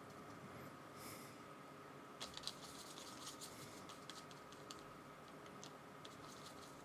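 Faint, irregular light clicks and taps of a paintbrush working paint on a palette, over a quiet room hum, with a soft breath about a second in.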